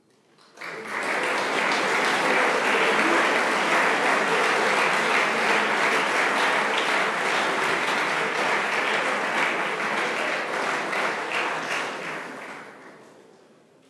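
Audience applauding. The clapping starts about half a second in, holds steady, and fades out near the end.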